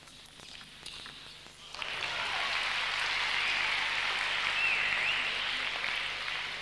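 Arena crowd applauding a won table tennis point, breaking out suddenly about two seconds in and slowly fading, with a short rising-and-falling whistle near the middle. Before it, a few sharp clicks of the celluloid ball off bats and table at the end of the rally.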